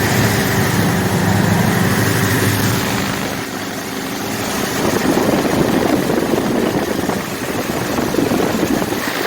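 The freshly rebuilt carbureted engine of a 1979 Ford F-150 running steadily while warming up. Its note dips about three seconds in and turns rougher after that. The engine runs, but the owner can't get it to idle.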